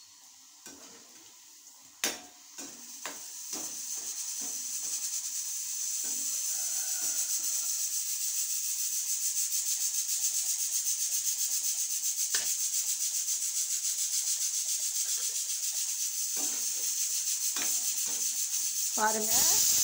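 Marinated yam pieces deep-frying in hot oil: a steady sizzle that builds over the first several seconds and then holds, with a few sharp clicks and knocks about two to five seconds in.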